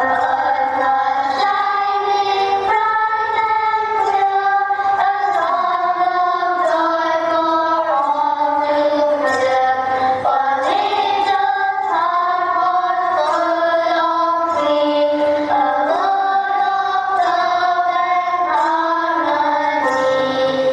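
A song playing: a sung melody over instrumental accompaniment, with no break.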